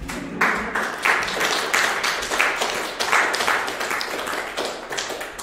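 A small group of people applauding, a patter of hand claps that fades near the end.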